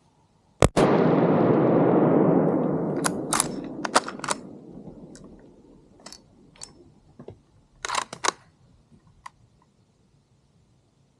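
A single hunting gunshot about half a second in, a follow-up shot at a wounded buck, its report rolling away and fading over about three seconds. A scatter of sharp clicks and knocks follows.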